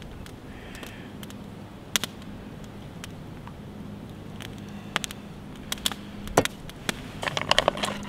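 Scattered light clinks and knocks of a metal mess-kit lid pan being handled while tea is drunk from it, with a quick run of rustling and clattering near the end as a hand goes into a pot on the stove.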